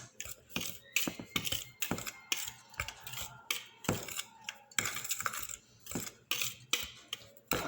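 A utensil stirring dry ingredients in a mixing bowl, knocking and clinking against the bowl in irregular clicks, a few a second.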